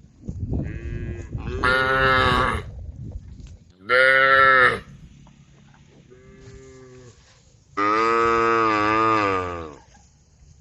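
Cows mooing, five calls in all: three loud ones and two fainter ones from farther off. The last call is the longest, at about two seconds.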